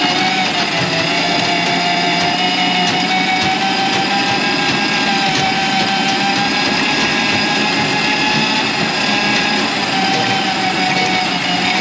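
Electric drain-cleaning machine running steadily, its motor pitch wavering slightly under load while it clears a grease-clogged kitchen drain line.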